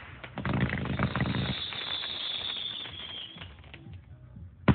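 Fireworks crackling and popping, then a high, steady firework whistle held for about two seconds that dips slightly in pitch as it ends, followed by a few faint pops.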